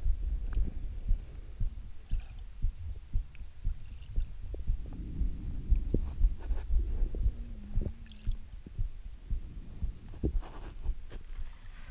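Muffled underwater noise picked up by a chest-mounted camera in its waterproof housing: a low rumble with irregular soft thumps and knocks as the freediver's body moves in the water.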